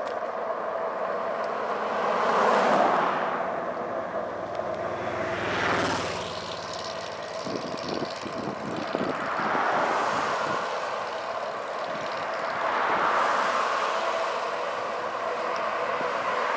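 Road traffic passing a moving bicycle: about four vehicles go by, each a swell of engine and tyre noise that rises and fades over a couple of seconds, over a steady background hum. One of them is a motorcycle overtaking the bike.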